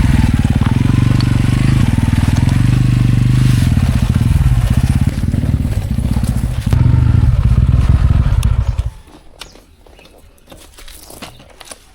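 Tractor engine running with a steady low throb, its loudness swelling a little now and then, that cuts off abruptly about nine seconds in, leaving a quiet background with scattered clicks and crackles.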